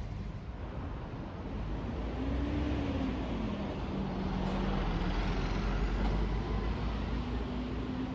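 City street traffic with a bus passing close by: tyre and engine noise swells over a few seconds, carrying a low engine hum that shifts in pitch.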